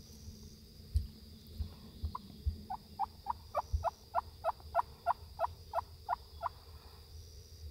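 A turkey call: a run of about fourteen evenly spaced yelping notes, roughly three a second, starting about two seconds in and growing louder over the first few notes. A steady high insect hum and a few low thumps sit underneath.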